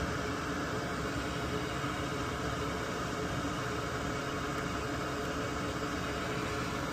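Small electric fan or blower running steadily: an even whirring hiss with a faint constant hum.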